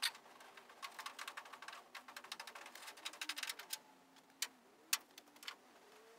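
Small metal hand tools clicking and ticking against the steel fender as a tap is worked into a hole. A quick run of rapid light clicks comes first, then three separate sharp clicks.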